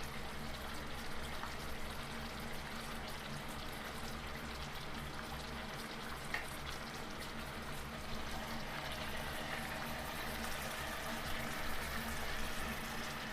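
Samosas deep-frying in hot oil: a steady bubbling sizzle with no break.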